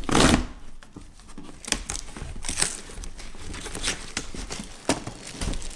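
Cardboard shipping box being opened by hand: a short rip of packing tape right at the start, then the flaps and the paper inside rustling and crinkling, with scattered light taps.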